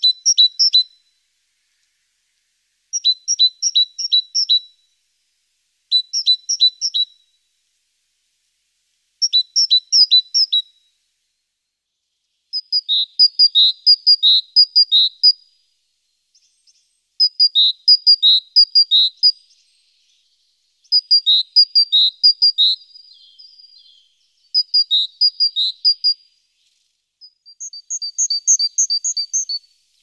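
Great tit singing: about nine short phrases of a rapidly repeated two-note motif, separated by pauses of a second or two. The bird switches to a different, lower motif about twelve seconds in, and to a higher one near the end.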